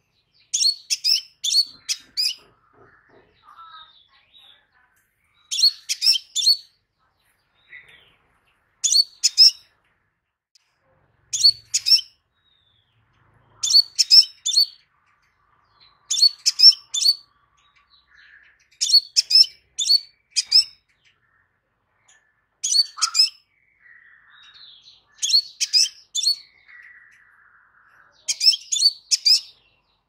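Crimson sunbird calling: about ten bursts of three to five short, sharp, high chirps, repeating every two to three seconds, with faint softer twittering between them.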